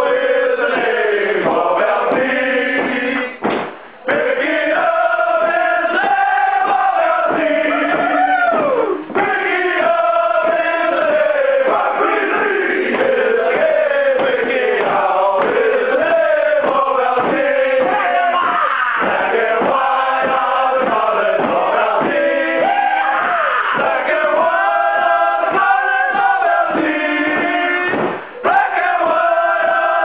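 A group of men singing a team song together in chorus, a continuous melody with short breaks about four seconds in, at about nine seconds, and near the end.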